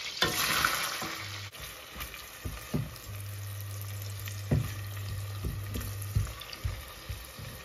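Chopped spring onions tipped into hot melted butter in a stainless steel pot, sizzling, loudest as they land in the first second. They are then stirred, the utensil knocking against the pot several times.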